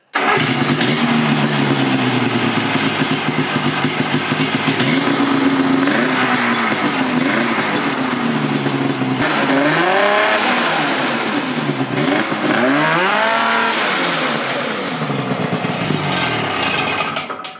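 Engine running and being revved up and down over and over, the pitch climbing and falling again several times through the middle, like a motorcycle or snowmobile under way.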